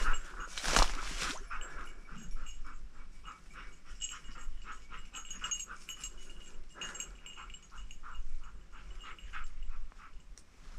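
Hunting dogs panting in a quick, even rhythm, about two to three breaths a second, with one louder sound about a second in.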